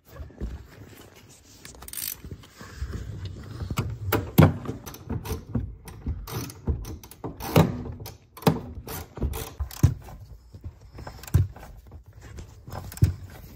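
Hand tools working on a car's rear suspension: a socket ratchet clicking, with irregular sharp metal knocks and clunks.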